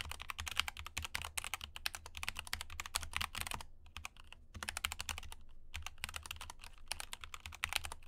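Fast typing on an X-Bows Lite ergonomic mechanical keyboard with Gateron Black linear switches: a quick, dense run of keystrokes, not silent but not very loud. It pauses briefly twice, around the middle.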